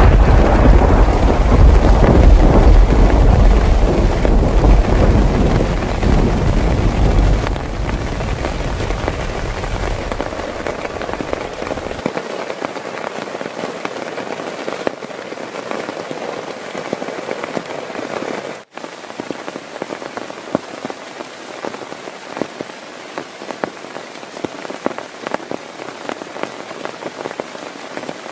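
Heavy rain falling steadily, with many small drop ticks, under a loud low thunder rumble that fades away during the first third.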